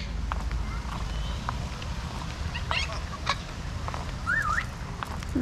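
Birds calling: a few scattered short chirps, then a wavering whistled call about four seconds in, over a steady low rumble.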